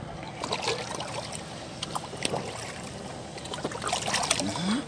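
A shoal of tra and basa catfish splashing and slapping at the water's surface, many small irregular splashes over a steady lapping, with a bigger splash about four seconds in as a fish breaks the surface.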